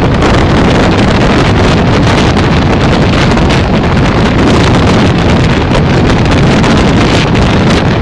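Loud wind buffeting a microphone held out of the window of a moving passenger train, over the train's steady running noise on the rails.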